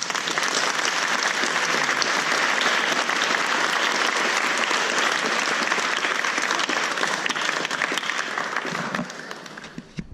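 Audience applauding at the end of a song: a dense round of clapping that starts all at once, holds steady, and dies away near the end.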